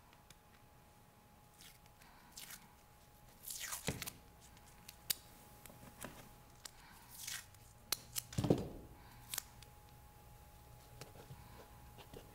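Masking tape being picked at, peeled off its roll and torn, in a handful of short rasping rips with scattered soft clicks, the loudest rips a few seconds in and past the middle, the later one with a dull knock.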